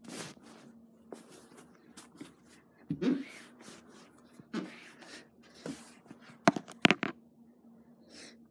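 Handling noise: rustling and knocking of fingers and a plush toy rubbing against the phone's microphone, with two sharp taps about two-thirds of the way through and a faint steady hum underneath.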